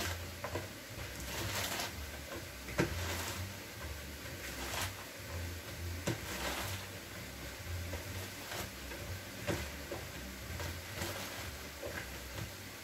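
Knife cutting crisp romaine lettuce on a cutting board: irregular sharp knocks of the blade on the board, a few seconds apart, over light crunching and rustling of the leaves.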